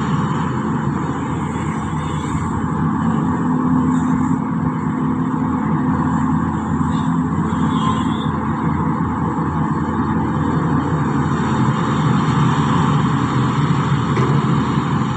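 Excavator's diesel engine running steadily, with a continuous low drone that holds the same level throughout.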